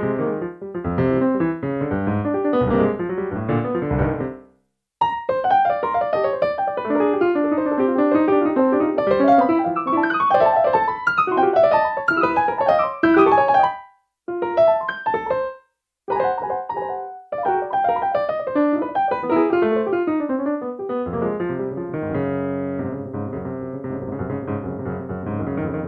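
Free-improvised playing on a digital piano: dense clusters and fast, jagged runs that stop dead three times, briefly, for short silences. Near the end the notes ring on together in a thick, held blur.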